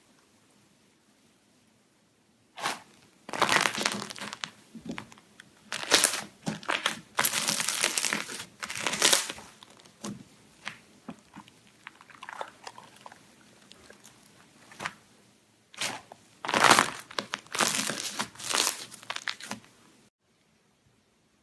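Slime being squished and pressed by hand, giving clusters of short crackling, noisy bursts that start a few seconds in and stop shortly before the end.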